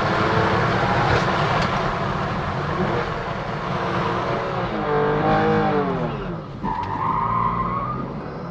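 BMW F80 M3's twin-turbo straight-six, tuned and running a straight-piped M Performance exhaust, pulling hard at high revs. About five seconds in the revs fall away sharply, and a high, steady squeal follows for about a second and a half.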